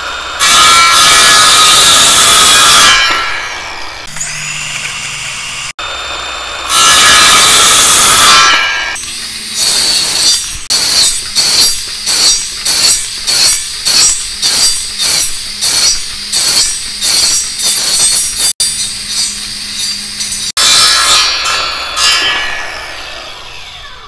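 Handheld circular saw making a series of half-inch-deep cuts across a wooden beam to clear out a notch. There are two long cuts, then a quick run of about a dozen short passes, roughly one and a half a second, with the motor running between them, and one more longer cut near the end.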